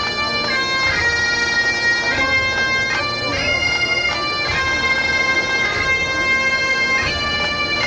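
Bagpipes playing a slow tune of long held notes that step up and down over a steady drone.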